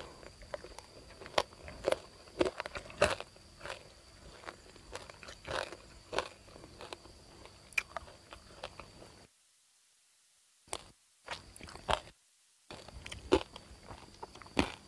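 Crisp bites and crunching chews into deep-fried crispy pork belly with puffed, crackling skin, close to the microphone. The crunches are sharp and irregular, several a second at times, the loudest about three seconds in.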